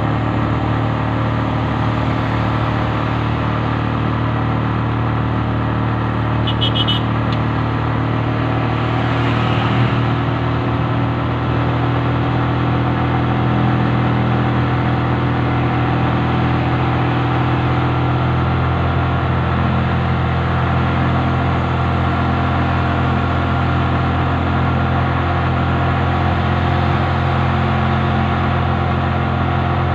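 Motorcycle engine running at a steady cruising speed, with constant road and wind noise. A short, high-pitched beeping comes in briefly about seven seconds in.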